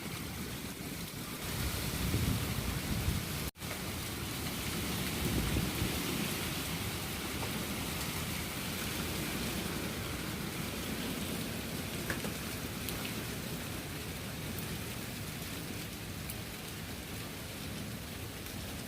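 Steady hiss of heavy rain falling in a storm, with strong wind gusting as a low rumble on the microphone, heaviest in the first few seconds. The sound breaks off for an instant about three and a half seconds in.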